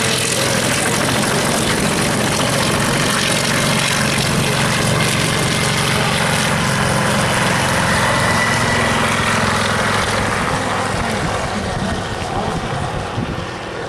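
A propeller-driven aircraft's engine running loud and steady, fading over the last few seconds as it draws away.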